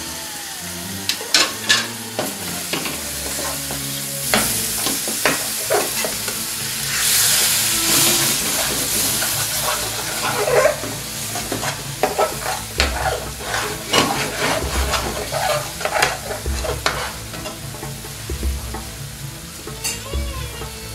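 A metal spoon stirring and scraping through curry in a hot frying pan, with clicks and taps against the pan, while the freshly added base gravy sizzles in the spiced oil. The sizzling swells into a louder hiss about seven seconds in, then settles.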